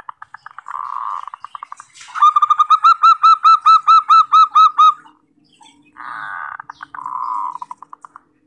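Zebra dove (perkutut) singing: a rough rattling coo at the start, then a quick run of about a dozen clear ringing notes, about five a second, and another rattling coo near the end.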